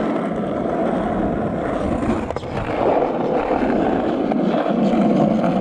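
Skateboard wheels rolling steadily over rough asphalt, a continuous rolling rumble, with one faint click a little past two seconds in.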